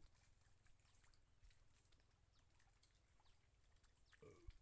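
Near silence: faint outdoor quiet with scattered soft ticks, and one short low sound falling in pitch near the end.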